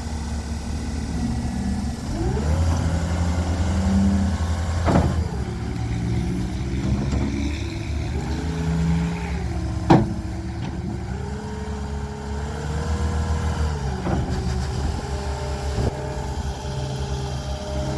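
Cat 236D skid steer loader's diesel engine running and revving up and down, with a whine that rises and falls as the machine is worked. Two sharp clanks, about five and ten seconds in, the second the loudest.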